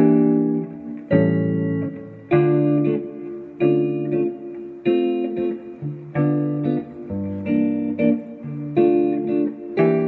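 Electric guitar playing a slow jazz chord progression, a new chord struck roughly every second and left to ring before the next.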